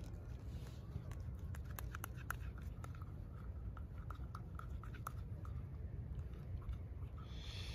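Small sticky clicks and crackles of fingers kneading and pinching freshly set gel bait, a shaken mix of powdered herabuna bait and water, scattered irregularly throughout, over a steady low background rumble.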